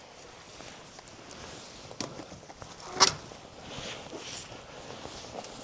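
Handling noise from taking down an old wire-net fence: scattered rustling, with a sharp knock about three seconds in and a smaller one a second before.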